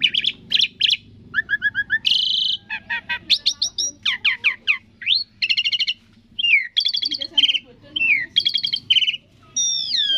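Asian pied starling (jalak suren) singing a varied song: rapid trilled runs of notes, rising and falling whistled slides and chattering phrases, one after another with short breaks.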